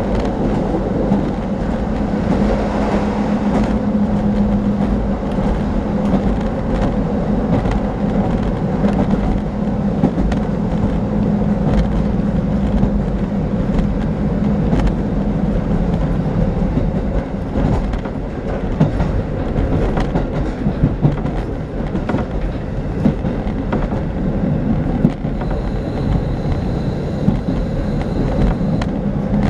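Interior of a diesel local train running along the line: steady engine drone and the rumble of wheels on the rails, with scattered light clicks from the track. A faint high steady tone sounds for a few seconds near the end.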